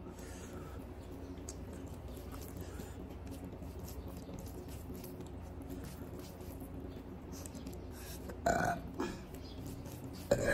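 Quiet eating sounds of rice being squeezed and mixed by hand over a steady hum, then a loud burp about eight and a half seconds in and another right at the end.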